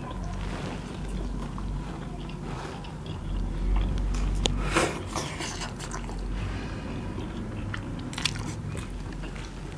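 Close-up mouth sounds of people eating momo dumplings without hands: biting, chewing and wet slurping smacks, with a few louder slurps about halfway through and again near the end.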